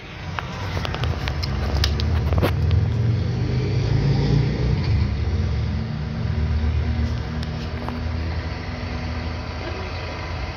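Heavy diesel truck engine running steadily in a low hum, louder in the first half, with a few sharp clicks in the first two or three seconds.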